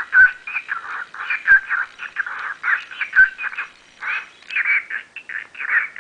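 Cockatiel chatter: a continuous run of rapid short warbling calls, with a louder whistled note roughly every second and a half.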